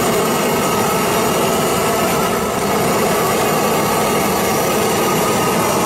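Steady, loud rushing noise of hot air being driven into a large tissue-paper festival balloon during inflation.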